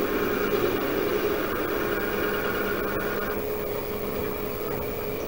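Small metal lathe running steadily with a low hum while its cutting tool turns down a layered leather cue tip. A higher-pitched layer over the hum stops about three seconds in.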